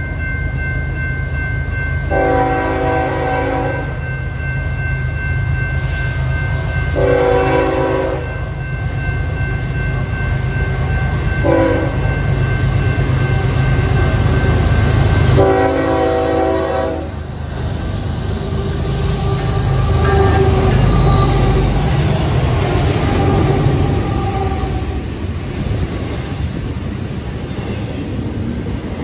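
Diesel freight locomotive's air horn sounding the grade-crossing signal, long, long, short, long, over a steadily ringing crossing bell that stops about halfway through. The three diesel locomotives then rumble past, followed by the rolling clatter of double-stack container cars.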